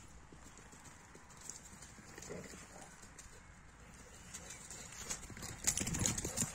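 Galgos (Spanish greyhounds) galloping on turf: a run of paw strikes on the grass that grows denser and loudest about five and a half seconds in, as one dog passes close by.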